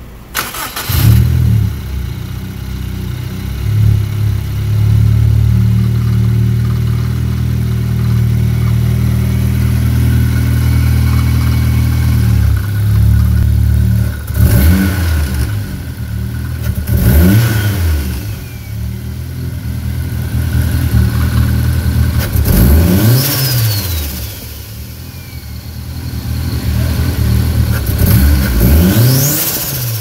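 Turbocharged Honda S2000 four-cylinder engine with a Garrett turbocharger, starting about a second in and running at idle. In the second half it is revved in several short blips, each followed by the turbo's high whistle falling in pitch as it spools down.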